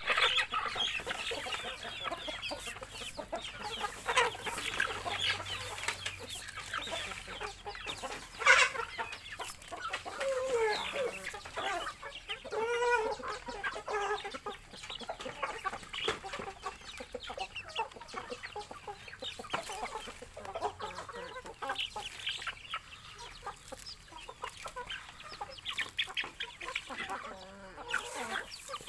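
A flock of chickens clucking as they feed, amid many small ticks, with a run of clearer, higher calls near the middle.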